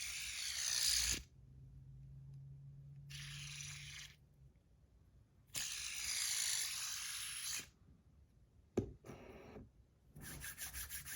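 Fidget spinner fitted with PEI buttons, spun by hand in several short bursts, its bearing whirring with a hiss for a second or two each time. There is a sharp click about nine seconds in and a quick run of ticks near the end.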